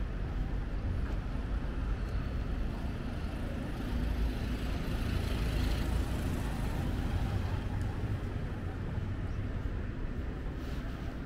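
Road traffic, with a vehicle passing by about halfway through.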